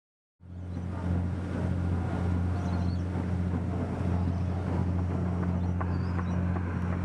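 Steady low drone of a boat's engine under a noisy wash, cutting in suddenly about half a second in.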